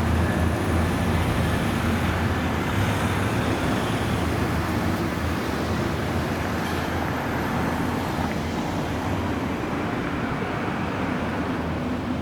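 Street traffic: a motor vehicle's low engine hum over road noise, fading slowly.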